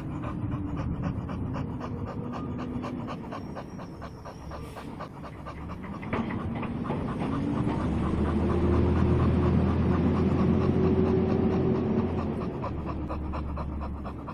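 Young American Staffordshire Terrier panting fast and steadily right at the microphone, mouth open and tongue out. A low rumble swells and fades under the panting in the second half.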